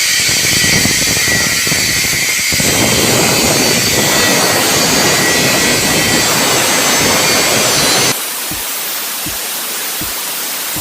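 Angle grinder cutting through a steel cable tray, a loud steady hiss of disc on metal. About eight seconds in the cutting noise drops to a quieter, duller hiss.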